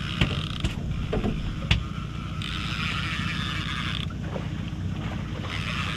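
Steady low hum of the boat's outboard at trolling speed, with a few sharp clicks from the rod and reel in the first two seconds as a hooked striped bass is reeled in.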